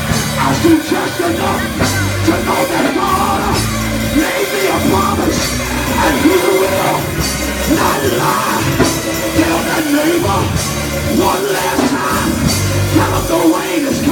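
Live gospel praise music in a church: a band with drum kit, keyboard and heavy pulsing bass, while a man sings and shouts through a handheld microphone over it.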